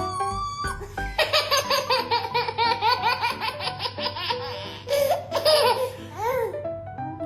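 A baby laughing in a long, fast run of repeated belly laughs, starting about a second in and breaking off about five and a half seconds in, over background music.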